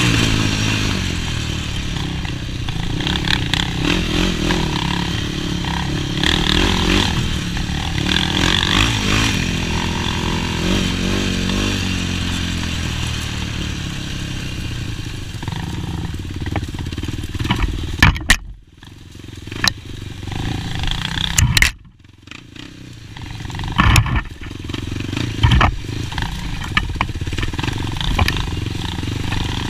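Yamaha YFZ450 sport quad's single-cylinder four-stroke engine running under load and revving up and down as it is ridden. About two-thirds of the way in the engine drops off sharply twice, each time with sharp clacks.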